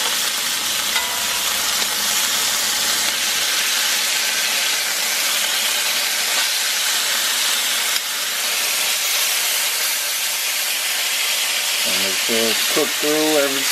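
Cubes of beef searing in hot oil in a cast iron skillet, a steady sizzle.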